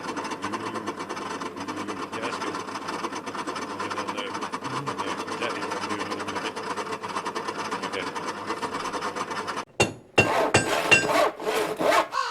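Meddings bench-top pillar drill running, a steady rough noise with a fine, fast ticking in it. The owner suspects its ball races need oil. After about ten seconds it cuts off suddenly, followed by a few short knocks.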